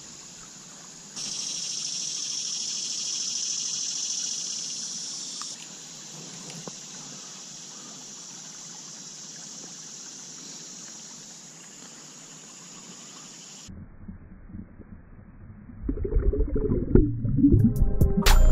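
Steady high insect buzzing over a quiet creek trickle, strongest for a few seconds near the start. About 14 seconds in the high sounds cut out, and over the last few seconds there is louder, irregular sloshing and bubbling as the hand holding the sunfish and the camera go under the creek water to release the fish.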